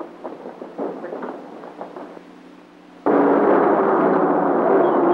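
Hurried boot steps and clatter of several men rushing out across a wooden floor, thinning out. About three seconds in, a sudden loud, steady rush of 1930s cars speeding on a dirt road.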